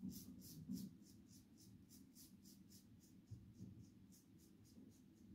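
RazoRock Wunderbar safety razor cutting stubble on the second pass: a faint, quick run of short scratching strokes, about five a second. It is the sound of short, stiff stubble meeting the blade edge.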